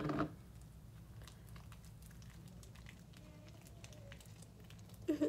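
Homemade glitter-glue slime squeezed and stretched by hand, giving faint, scattered sticky clicks and squishes.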